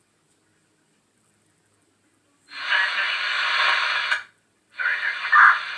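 A man breathing hard: two long, noisy breaths, the first about halfway in and the second starting near the end. The breaths sound thin, with little low end.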